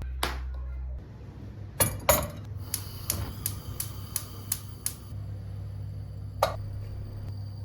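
Clinks and knocks of glassware and dishes being handled, with two louder knocks and then a quick run of light taps in the middle, over a steady low hum.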